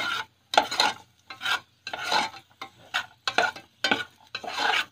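Metal spoon stirring cashews and raisins as they fry in ghee in a steel pan: repeated scraping strokes, about two a second, over the sizzle of the hot ghee.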